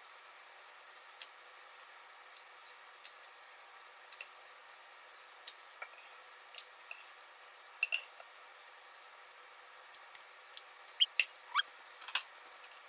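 Stainless ladle and canning funnel clinking and scraping against a metal pot and glass canning jars as hot jam is ladled in: scattered light clinks, with the loudest few near the end, one ringing briefly.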